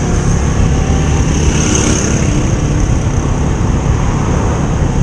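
Motorcycle engine running steadily at cruising speed, mixed with a steady rush of wind noise from riding.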